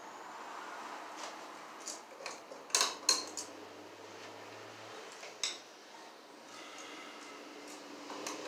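Scattered light clicks and clinks of hand work on an electrical receptacle: its wires folded and the receptacle pushed into a plastic 4-inch square box. The sharpest clicks come as a close pair a little under three seconds in, with another about two and a half seconds later.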